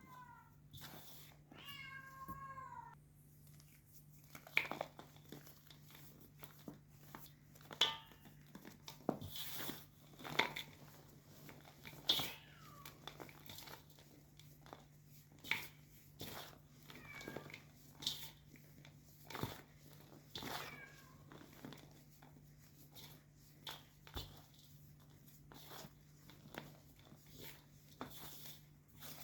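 Cat meowing, one clear falling meow a couple of seconds in and fainter ones later, over irregular sharp crunches of white gym chalk being crushed by hand.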